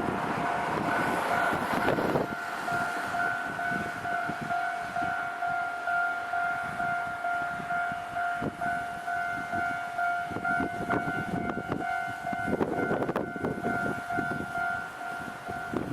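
Japanese railway level-crossing warning bell ringing steadily with one repeating tone, the signal that a train is approaching or passing. Louder rushing noise swells about two seconds in and again near the end.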